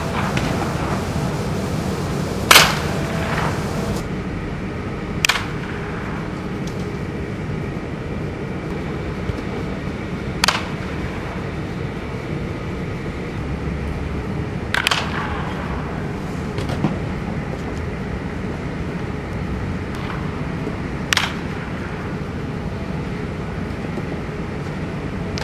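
Baseball bat striking pitched balls: about five sharp cracks a few seconds apart, the first the loudest, over a steady low hum.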